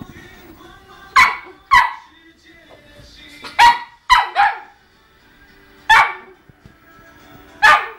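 A dog barks six times in short, sharp barks at uneven intervals.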